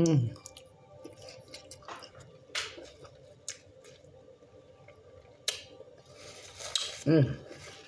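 Salad dressing squeezed from a bottle onto a salad: soft squelching squirts and drips with a few light clicks, and a short murmur from the eater near the end.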